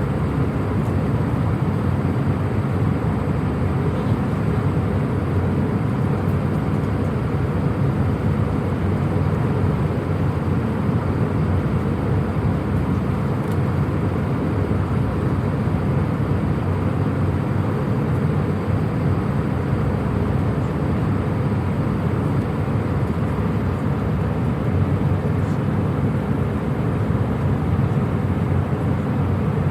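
Cabin noise inside a passenger jet in flight: a steady, even rumble and rush of engine and air noise, heaviest in the low range.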